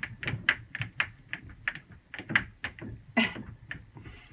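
Quick, irregular light clicks and taps, a few a second, with a louder knock about three seconds in: parts and tools being handled while the refrigerator is put back together.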